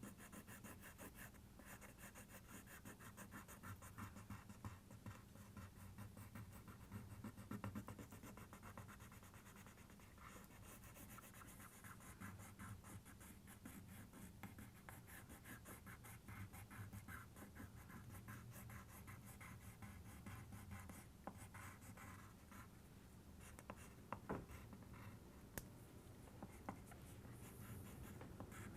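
Faint, rapid scratching strokes of a drawing tool shading in dark areas of a drawing.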